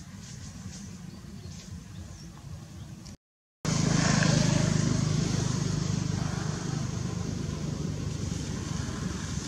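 A small engine running steadily. It starts after a brief dropout in the sound a little over three seconds in; before that there is only faint background noise.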